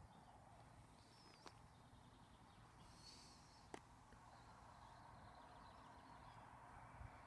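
Near silence: faint outdoor rumble with a couple of faint bird chirps and two light clicks.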